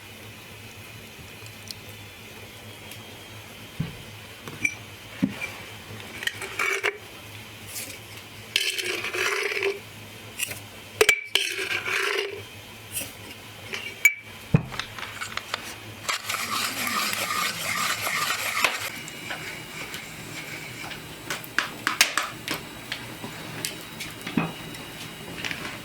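Kitchenware being handled: scattered clinks and knocks of utensils against pots and dishes, with a few longer scraping stretches of a second or more.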